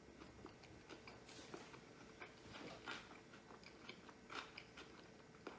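Faint close-up chewing of a low-carb sushi roll, with small wet mouth clicks and light crunches scattered through.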